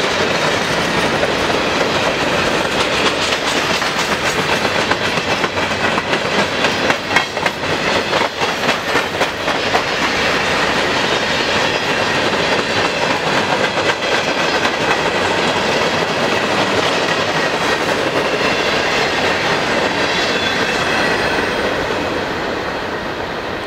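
Freight train cars, mostly covered hoppers, rolling past at speed: a steady rumble of steel wheels on rail with clicking as the wheels cross rail joints. The sound fades in the last couple of seconds as the final cars go by.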